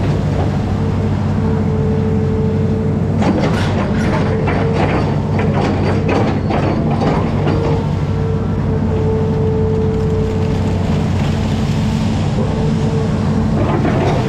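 Hitachi amphibious excavator's diesel engine running steadily under load, with a hydraulic whine that comes and goes as the boom and bucket move. A run of rough splashing and clattering in the middle as the bucket churns the river water.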